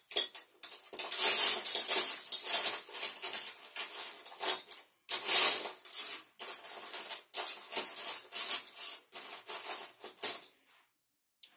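Loose plastic Lego bricks clattering as a pile of them is rummaged through by hand, a dense irregular rattle of clicks that stops shortly before the end.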